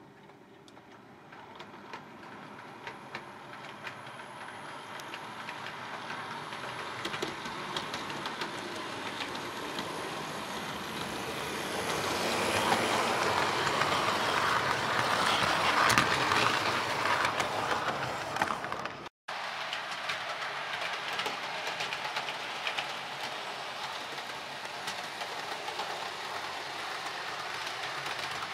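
Hornby OO gauge model train, a Class 67 locomotive hauling Mk3 coaches and a DVT, running on the layout's track: a rumbling whirr with many small wheel clicks that grows louder as the train comes close and passes, loudest about two-thirds of the way through. The sound cuts out for a split second just after, then carries on steadily at a lower level.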